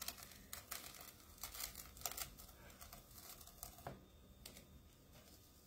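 Adhesive silk-screen stencil being peeled slowly off a wooden cutting board: faint crinkling and scattered light ticks as the sticky mesh lifts away, still clinging in places.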